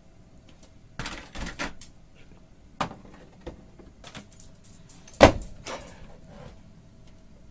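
Pet door flap and frame clattering as a dog pushes through with a large bone held crosswise, the bone knocking against the door on either side of the opening. A run of sharp knocks and rattles, the loudest about two-thirds of the way through.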